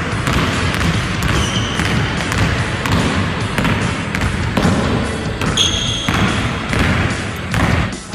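A basketball being dribbled hard on a hardwood court floor, with rapid, repeated bounces. A couple of short high squeaks, typical of basketball shoes on the court, come about one and a half and five and a half seconds in.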